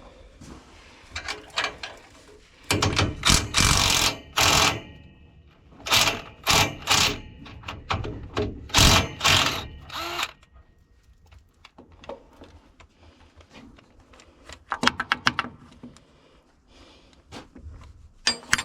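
Loud bursts of mechanical rattling from tool work, a string of them through the first half, then a few quieter bursts later.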